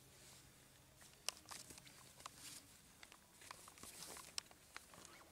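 Quiet scuffling of puppies at play: scattered small clicks and taps of paws and toys on patio tiles, with a sharper tap about a second in and another near the end.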